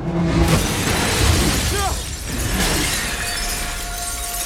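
Glass shattering and debris crashing, starting suddenly and loudly and continuing as a dense clatter of breaking glass. A held tone comes in about three seconds in.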